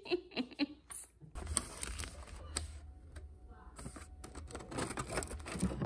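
Clicking and crinkling of a clear plastic cookie tray and cardboard box being handled, with a low handling rumble that starts about a second and a half in.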